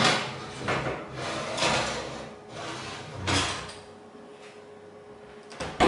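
Round metal baking pan set onto an oven's wire rack and the rack slid in, metal scraping and rattling in several pushes over the first few seconds, then a couple of sharp knocks near the end.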